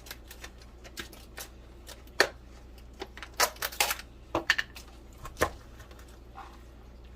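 Irregular light clicks and taps of kitchenware against a bowl as Parmesan cheese is added to a breadcrumb mixture, most of them bunched in the middle.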